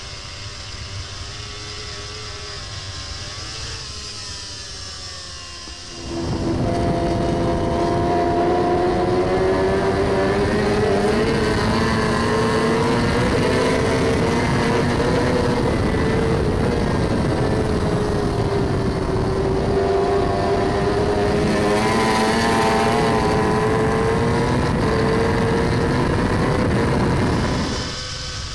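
Racing superbike engines heard onboard at high revs with wind and road rush. The sound steps up sharply in loudness about six seconds in, and the engine pitch then sweeps gently up and down with speed before dropping back near the end.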